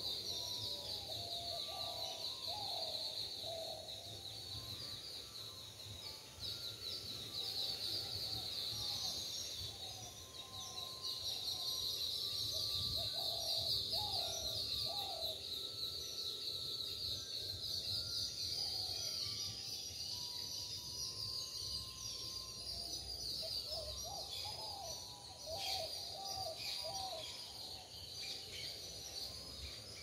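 Birds calling in a morning chorus. Groups of short, lower-pitched falling notes repeat every few seconds, with a few thin whistles between them, over a steady high-pitched drone.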